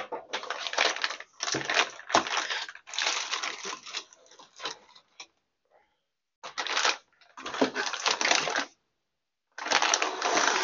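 Crinkling plastic bags and cardboard packaging being handled while a box is unpacked, in irregular bursts with short pauses.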